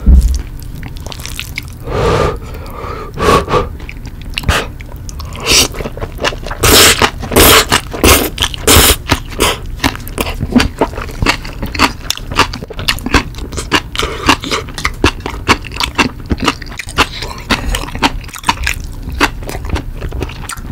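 Close-miked eating: jjapagetti black-bean noodles with spicy green onion kimchi slurped in and chewed wetly, with quick mouth smacks and clicks. The loudest strokes bunch around the middle.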